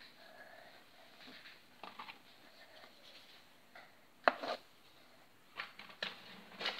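Kitchen items being taken from a cupboard and set down on a countertop: scattered knocks and clatter, the loudest a sharp knock about four seconds in, then a few more near the end.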